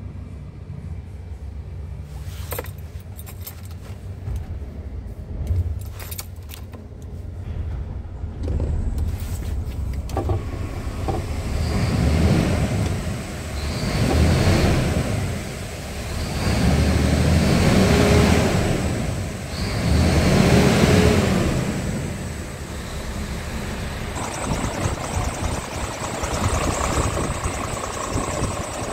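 Scania R tractor unit's diesel engine idling, then revved up and let fall back four times before settling to idle again. A few clicks and rattles sound in the first ten seconds.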